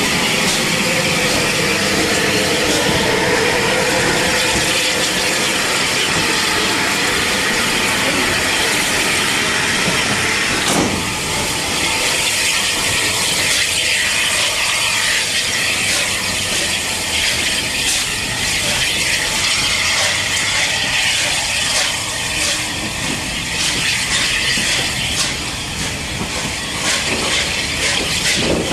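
Unrebuilt Bulleid Light Pacific steam locomotive moving slowly out along the platform with a loud, steady hiss of escaping steam, then its coaches rolling past with wheels clicking over the rail joints.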